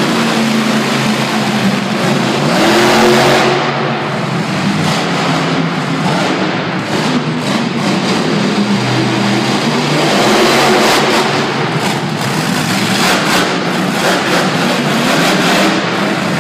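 Storm Damage monster truck's supercharged V8 revving up and down again and again as it drives its freestyle run, loud throughout.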